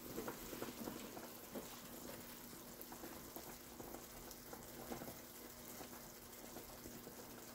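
Pot of broccoli soup bubbling faintly at a simmer: soft, irregular small pops over a low steady hum.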